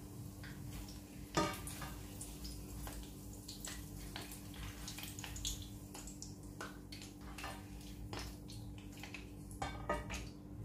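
Green chillies frying in hot oil in a pan: scattered irregular pops and crackles over a steady low hum, the loudest pop about a second and a half in. The chillies are scorching in the heat, turning slightly burnt.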